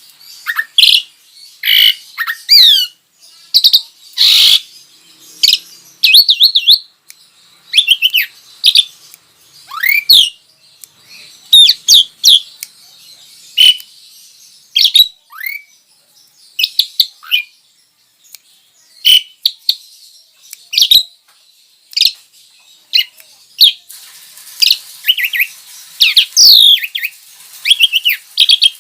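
Starlings and mynas (jalak) calling: loud, sharp whistles and squawks, some sliding up or down in pitch, coming in irregular bursts and turning into denser chatter near the end.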